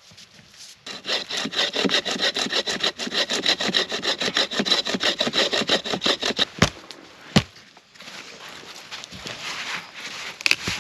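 A saw cutting through wood in fast, even back-and-forth strokes for about five seconds, then two sharp knocks.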